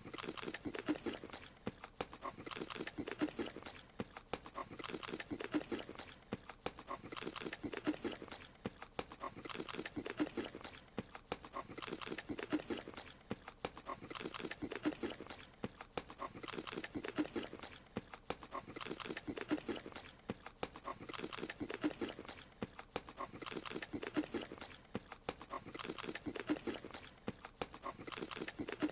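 Cartoon creature's eating sound effect: rapid munching and chomping on a strawberry, in bursts that repeat evenly a little over every two seconds as the short animation loops.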